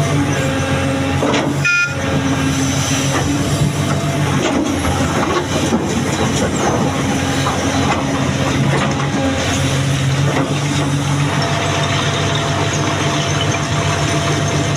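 Heavy diesel engine of an excavator at work running steadily, with a few scattered knocks.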